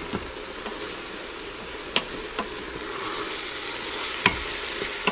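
Diced onion, ginger and garlic sizzling in hot oil in the stainless steel inner pot of an Instant Pot on its sauté setting, stirred and scraped with a wooden spoon. The spoon knocks against the pot three times, and the sizzle swells a little about three seconds in.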